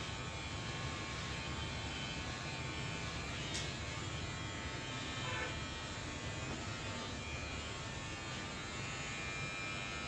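Electric hair clipper running with a steady buzz, with a single light click about three and a half seconds in.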